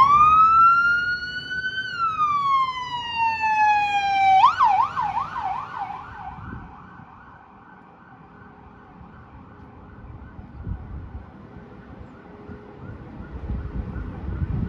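Electronic emergency siren of a fire department battalion chief's SUV: a wail rising and then falling, switching about four seconds in to a fast yelp of about four sweeps a second that fades as the vehicle moves away.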